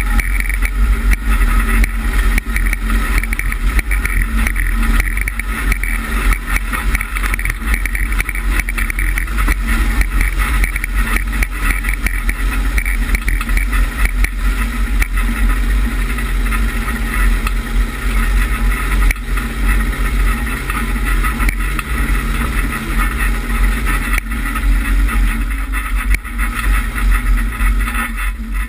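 Lifted Chevrolet Suburban driving off-road over rough grass and dirt, its engine running at a steady pull under a heavy low rumble from the terrain and vehicle on an outside-mounted camera. The engine note drops away near the end.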